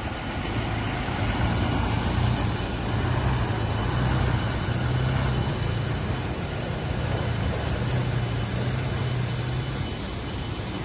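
Motor vehicle engines running steadily with road traffic noise, a low drone under a broad hiss that fades a little near the end.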